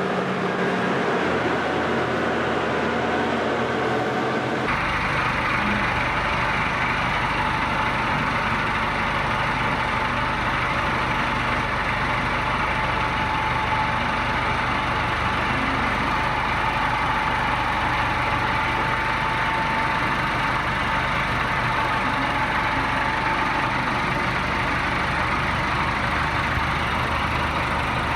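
Tractor engine running steadily at idle; the sound changes abruptly about five seconds in, as one clip gives way to another.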